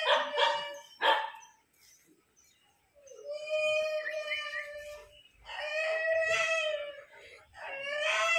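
Husky howling: a couple of short cries, then three long drawn-out calls at a steady pitch, each lasting about one and a half to two seconds.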